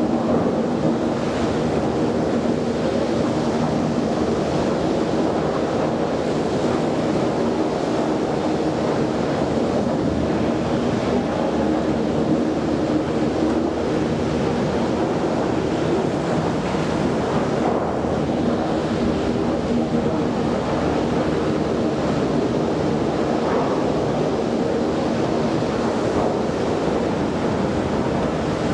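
Steady machinery noise of a log-handling yard with its overhead log crane and drum debarker running: a constant rush with a low hum and no distinct knocks.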